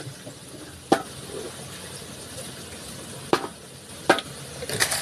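Plastic bucket being handled and hauled up out of a hand-dug well: a few sharp knocks and clatters, one about a second in and several more in the last two seconds, with faint water sloshing between them.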